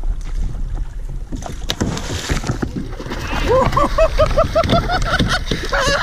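Water splashing and churning as a king mackerel thrashes at the surface beside a kayak while it is gaffed, over wind rumbling on the microphone. In the last couple of seconds there is a fast run of short, repeated squeaks, about four a second.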